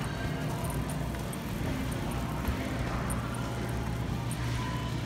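Wire shopping cart rolling across a smooth store floor: a steady rumble of its wheels with faint clicking and rattling, over the low hum of the store.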